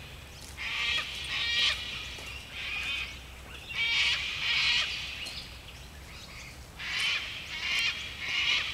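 Birds giving short, harsh calls, often two in quick succession, repeating every second or so.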